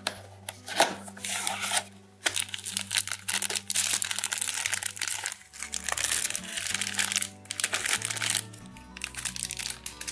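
A blind box's cardboard flap being opened with a few clicks, then a foil bag crinkling and rustling as it is torn open and the figure pulled out, over background music.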